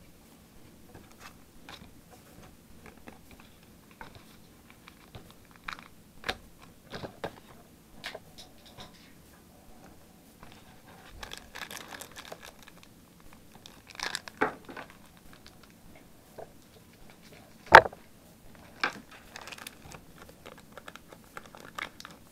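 Trading cards being handled and stacked, then a foil booster-pack wrapper crinkling and tearing as it is worked open in the hands. Scattered light clicks and crackles throughout, with one loud sharp snap about four-fifths of the way through.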